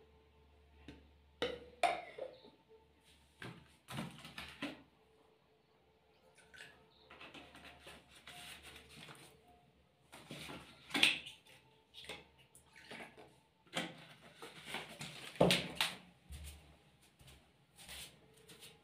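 Irregular plastic clicks, knocks and rustles of a paint sprayer's plastic paint container and its cap being handled, with a few sharper knocks about two, eleven and fifteen seconds in.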